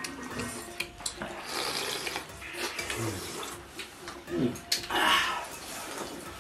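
People slurping hot soup from porcelain bowls in noisy sucking bursts, the loudest about five seconds in, with a few light clicks of chopsticks against the bowls.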